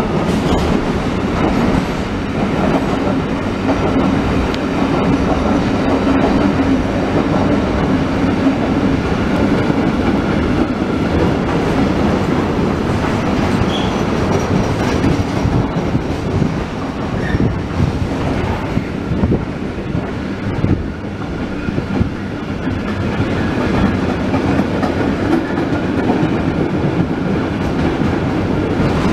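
Freight train of loaded container flat wagons rolling past close by: a steady, loud rumble and clatter of steel wheels on the rails.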